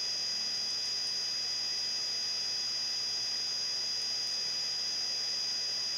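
Steady background hiss with a constant high-pitched electrical whine and faint hum, unchanging throughout: the recording setup's noise floor, with no other sound.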